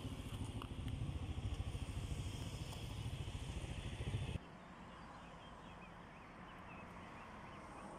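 Wind buffeting the microphone in a low, fluttering rumble that cuts off abruptly about four seconds in, leaving quiet outdoor ambience with faint bird chirps.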